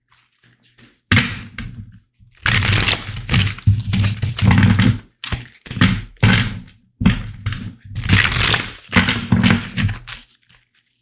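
Tarot cards being shuffled and handled on a table: a string of short rustling, slapping bursts with dull thuds, stopping and starting about a dozen times.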